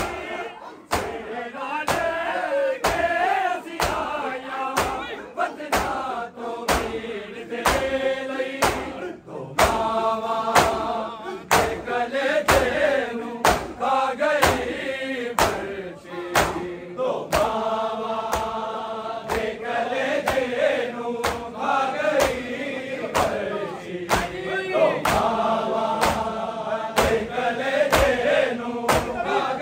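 Male voices chanting a Punjabi noha in chorus, unaccompanied. Sharp strikes keep an even beat under the chant, about one every half second or so: hands beating the chest (matam) in time with the lament.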